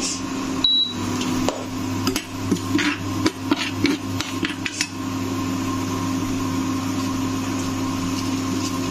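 Steel ladle scraping and clinking against a stainless steel kadai while stirring mustard seeds and dal in hot oil, a quick run of knocks in the first half that then stops. A steady hum underlies it throughout.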